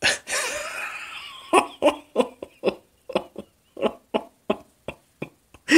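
A man laughing helplessly at his own joke. It starts with a breathy, wheezing gasp, then breaks into a run of short laugh bursts, about three a second.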